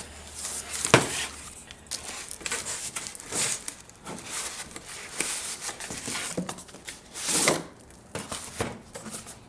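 Cardboard product box being opened and its contents handled: irregular rustling, crinkling and scraping of packaging and papers, with a sharp knock about a second in.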